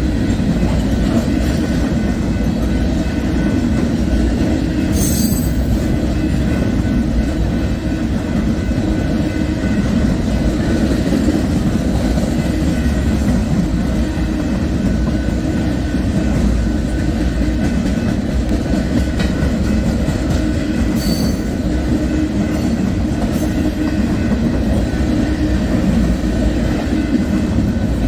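Railcars of a passing train rolling along the track: a loud, steady low rumble of wheels on rail, with brief high wheel squeals about five seconds in and again about twenty-one seconds in.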